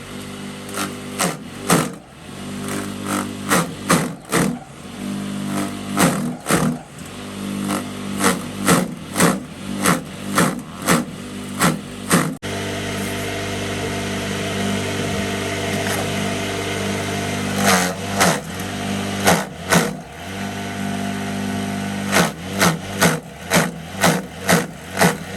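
A motor running steadily under a run of sharp knocks, about two a second. The knocks stop for several seconds about halfway through, then come back in short runs.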